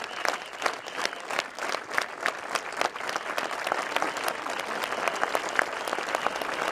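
Spectators applauding: a dense, continuous clapping from the crowd in the stands.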